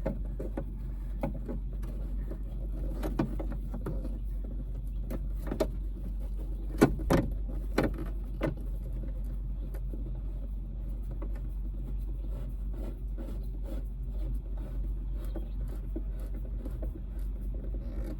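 A steady low rumble with scattered clicks and knocks over it, the loudest knocks a few seconds in, as of parts being handled.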